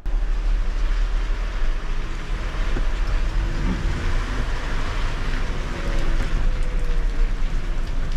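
Refuse lorry's diesel engine running as the truck drives slowly along a wet road, heard from inside the cab, with a steady deep rumble under an even hiss of heavy rain and tyres on water.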